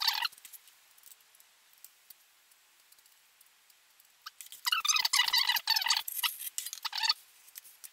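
Metal putty knife and notched trowel scraping tile adhesive across the back of a tile: a brief scrape at the start, then a stretch of rapid scraping lasting about two and a half seconds from about four and a half seconds in.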